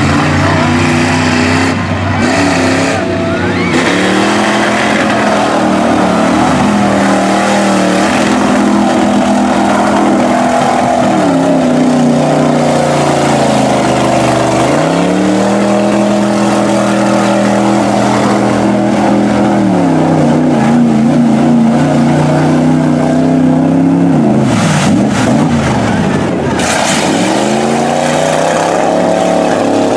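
Lifted mud truck on tractor tires ploughing through a deep mud pit, its engine revving hard, rising and falling again and again and held high for several seconds at a stretch.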